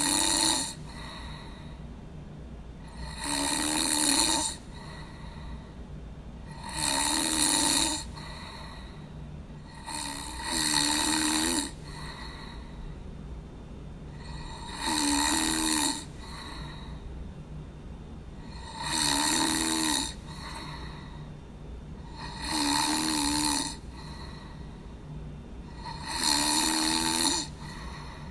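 Snoring: eight long snores, one every three and a half to four seconds, each lasting over a second with a rough, wavering pitch, over a steady low hum.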